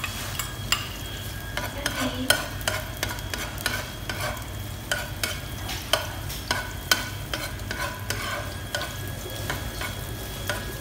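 A wok of cabbage, carrots and meat in broth cooking on the stove, with a steady low hum and frequent irregular clicks and pops, about one or two a second.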